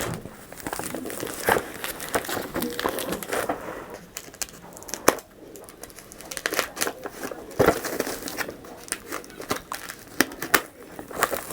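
Packaging material being crinkled, rustled and torn by hand while a parcel is unwrapped: a dense, irregular run of sharp crackles and rustles, with a few louder snaps.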